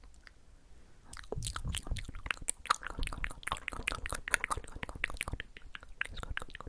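Close-miked ASMR mouth sounds: a rapid, dense run of wet tongue and lip clicks and smacks, starting about a second in.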